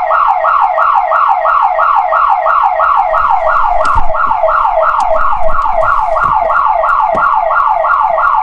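Electronic alarm siren wailing in rapid falling sweeps, about three or four a second. It is set off by a dummy kill switch wired through a relay as an anti-theft alarm.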